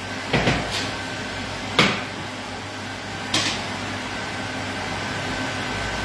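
Three sharp clacks of cookware being handled on the hob, a pan or utensil knocking, about a second and a half apart, over a steady kitchen hum with a faint high tone.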